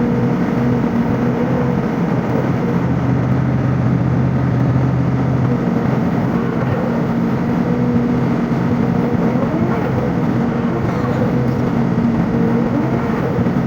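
Sany SY55C mini excavator's diesel engine running with a steady drone; its note changes about five and a half seconds in, as with a change in load or throttle.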